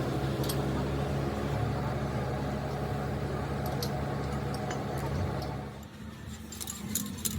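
A machine's motor or engine running steadily with a low hum, then cutting off about six seconds in; a few light metallic clicks follow.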